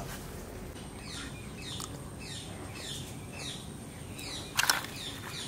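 A bird calling: a run of short chirps, each sliding downward in pitch, about two a second, with a brief rustle about four and a half seconds in.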